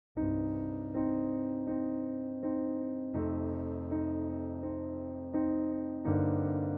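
Background music of soft keyboard chords struck again about every three-quarters of a second, starting suddenly out of silence just after the start.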